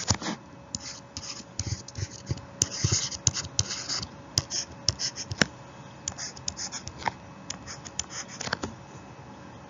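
Pen writing: short, irregular scratches and taps, busy at first and thinning out over the last few seconds.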